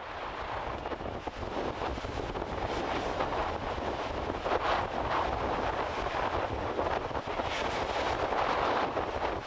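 Ocean surf breaking and rushing over a rocky lava shore around a sea blowhole, with wind rumbling on the microphone. The rush of water swells louder about halfway through and again near the end, as the blowhole sends up a spout of spray.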